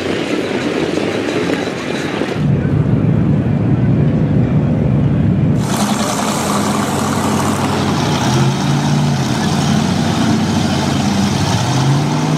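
Engines of lifted mud trucks running and revving in a mud pit, the pitch rising and falling. The sound changes abruptly twice: a deep, muffled engine sound from about two seconds in, then a clearer engine revving from about five and a half seconds in.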